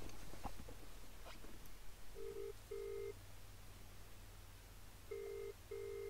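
Phone ringback tone from a mobile phone held to the ear: two double rings, each a pair of short low beeps, the second pair about three seconds after the first. The call is ringing out and not yet answered.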